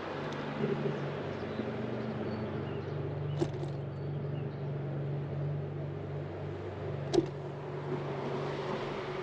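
Road traffic on a town street heard from a moving bicycle: passing cars and a steady low hum, with two short sharp clicks, about three and a half and seven seconds in.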